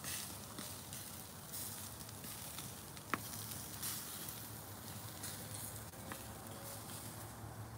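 Pork loin chops sizzling on the low grate over lump charcoal: a faint, uneven hiss with light crackling, and one sharp click about three seconds in.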